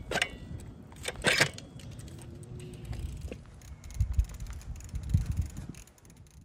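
Bicycle clicking and rattling as it is pushed off and ridden at low speed, with a few sharp metallic clicks in the first couple of seconds and low rumbling thumps later on.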